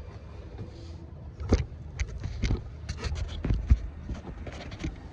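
A string of light, irregular clicks and knocks from hands and tools moving around the battery area, over a low steady hum.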